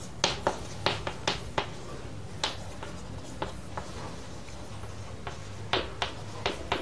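Writing by hand: irregular sharp taps and clicks of the pen or chalk, about a dozen spread unevenly, over a faint low hum.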